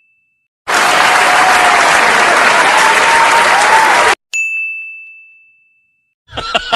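A high single bell ding fading out, then about three and a half seconds of applause, then another single high ding that rings and dies away.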